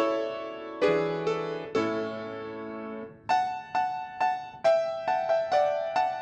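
Solo piano playing: ringing chords in the first half, then a quicker run of repeated single notes from about three seconds in.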